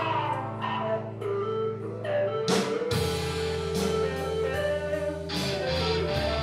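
Live rock band playing an instrumental passage: electric guitar lines over bass guitar and drums, with no singing. The bass comes in more strongly about three seconds in, just after a crash.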